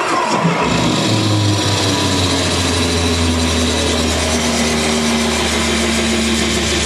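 Machine-like sound effect in the robot-dance soundtrack, played through the hall's speakers: a steady low drone with a dense mechanical texture, starting about a second in and holding until just before the end.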